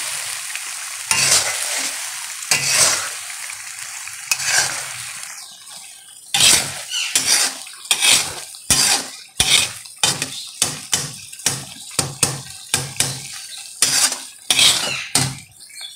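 A spatula stirring and scraping pieces of liver around a karahi as the spiced tomato masala sizzles and fries. A few slow sweeps come first, then quicker scrapes about twice a second from about six seconds in.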